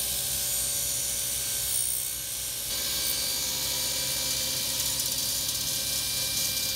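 Table saw running steadily, its blade cutting through a reclaimed hardwood board.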